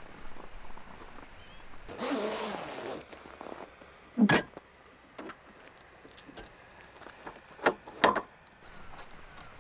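Footsteps in snow, then the metal fasteners of a truck's canvas cargo cover being undone: one loud clank about four seconds in and two sharp metallic clicks near the end.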